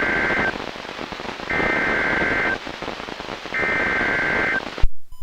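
NOAA Weather Radio hiss with three one-second bursts of warbling SAME digital data tones, each about two seconds apart, the coded EAS signal that sets off weather alert radios. A click near the end, then the sound cuts off abruptly.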